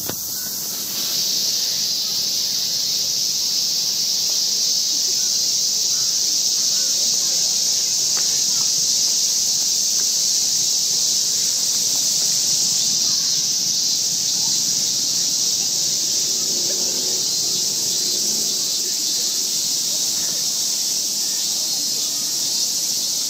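Steady high-pitched insect chorus, a continuous drone with no breaks.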